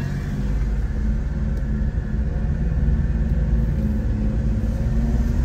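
Kei mini truck's small engine running as the truck drives slowly, heard from inside the cab: a steady low rumble that grows slightly louder.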